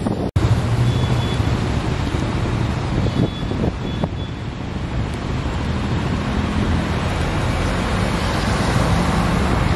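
Road traffic on a wet street: cars and motorbikes running and passing, a steady mix of engine noise and tyre sound, with a sudden brief drop-out just after the start.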